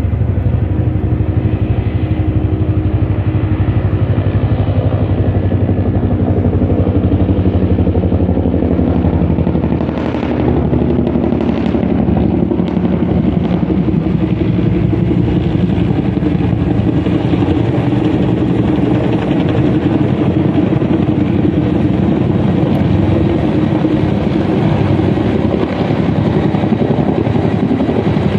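Helicopter flying low overhead, its main rotor beating rapidly and steadily.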